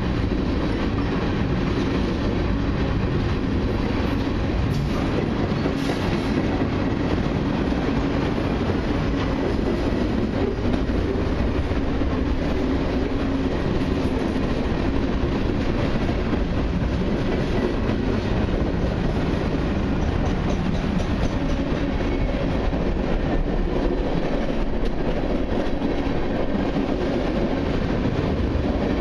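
Freight train's tank cars and boxcars rolling past: a steady rumble and rattle of steel wheels on the rails.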